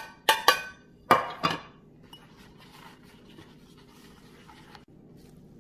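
An open tuna can and its lid clinking sharply, about five times in the first two seconds, as the can is drained. This is followed by soft, scratchy rustling of a paper towel squeezing the tuna in a glass bowl.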